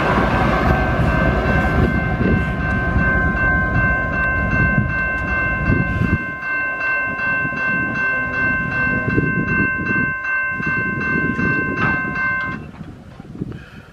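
Rear GE ES44AC locomotive and double-stack cars of a freight train rumbling past, the rumble dropping off about six seconds in as the train's end passes and it pulls away. Under it a railroad crossing bell rings in a steady pulse about twice a second, stopping abruptly about a second before the end once the train has cleared.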